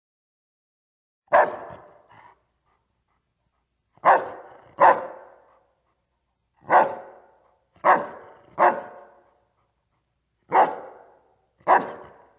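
Doberman pinscher barking: about eight single deep barks, some in quick pairs, each dying away in a reverberant tail.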